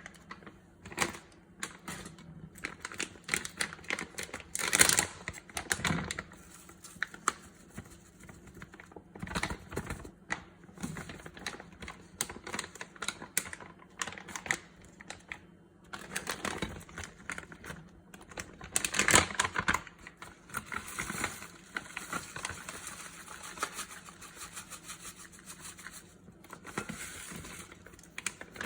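Salad preparation: irregular clicks, taps and knocks of kitchen utensils on a board or bowl, with a stretch of rustling, scraping noise near the end.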